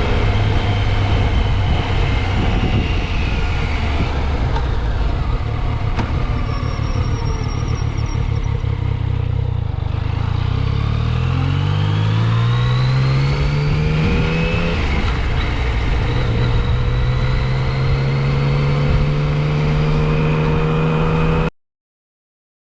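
2015 Yamaha FJ-09 Tracer's 847 cc inline-three running under way, with wind rush on a helmet-mounted microphone. The engine note falls as the bike slows about ten seconds in, rises as it accelerates, then holds steady. The sound cuts off abruptly near the end.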